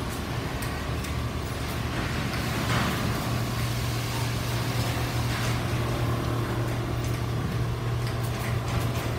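Hall of quilting machines running: a steady low machine hum with scattered light clicks over it.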